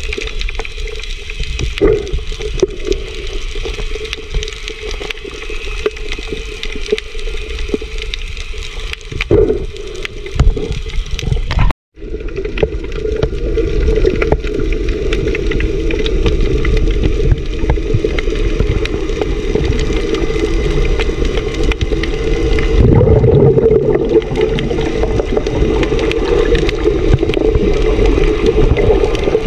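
Muffled underwater water noise picked up by a camera submerged in the sea: continuous sloshing and bubbling with a steady low hum underneath, and a brief drop-out about twelve seconds in, after which the wash is louder and more even.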